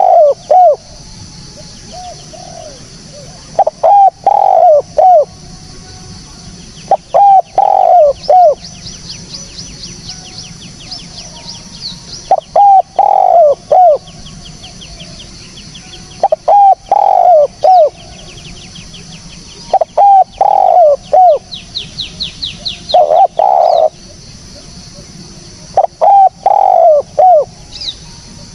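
Spotted dove (tekukur) cooing: a short phrase of several coo notes repeated about every three to four seconds, about eight times. A fast, high trill from a small bird runs faintly behind it twice.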